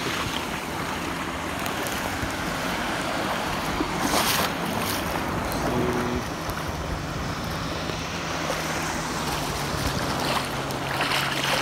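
Ocean surf washing around a wader in shallow water, with wind buffeting the microphone.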